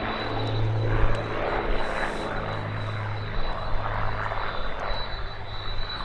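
Twin-engine Aero Commander in flight with its propeller engines running, a steady drone.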